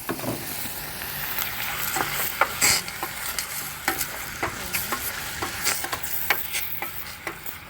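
Chicken liver frying in hot oil in a pan, with a steady sizzle, while a utensil stirs and taps against the pan in many short clicks.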